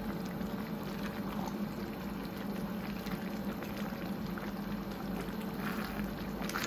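Cabbage stew simmering in a pot: a steady bubbling with a low hum underneath.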